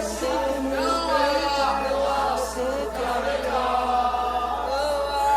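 Several voices singing a gospel worship song together, with held, sliding notes over musical accompaniment.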